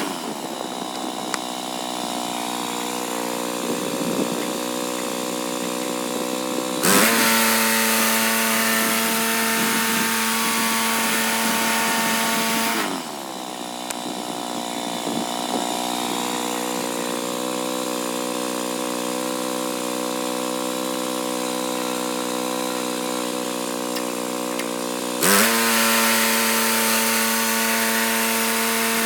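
Gas engine of a portable band sawmill running steadily at high speed while sawing boards. Its pitch sags twice, at the start and about halfway through, and jumps back up, a little louder, about a quarter of the way in and near the end.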